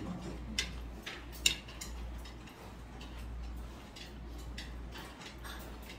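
Eating sounds: scattered sharp clicks and smacks of chewing and metal chopsticks against the dishes, the loudest about a second and a half in, over a steady low hum.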